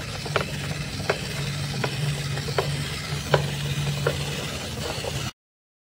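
A steady low motor hum with a regular click about every three-quarters of a second; both cut off suddenly about five seconds in.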